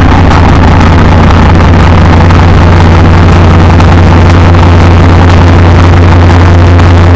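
Harsh electronic noise/dark ambient music: a loud, dense, unchanging drone built on a strong low hum with a thick layer of noise over it, much like a big engine running.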